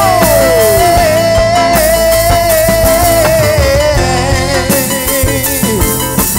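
Live band music: a held, wavering lead melody over bass and drums.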